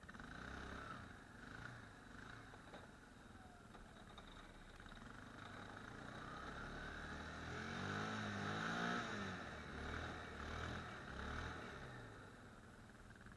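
ATV engine running under load while plowing snow, revving up and easing off several times, loudest about eight to nine seconds in.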